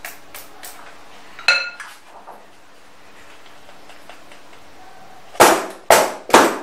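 Metal cake tin handled on a countertop: a few light taps, a single ringing metallic clink, then near the end the batter-filled tin knocked down on the counter three times, about every half second, to settle the batter.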